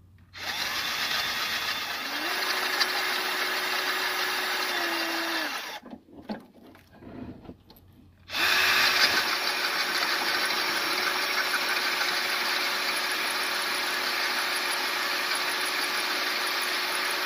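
Electric drill boring a twist bit into the metal face of a Nissan VG33E crankshaft harmonic balancer: a steady motor whine under the grinding of the cut. It runs twice, stopping for about two and a half seconds near the middle.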